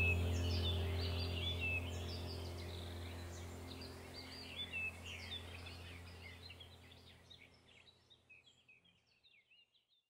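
Small songbirds chirping and twittering over a low, steady musical drone, the whole soundtrack fading out gradually to silence near the end.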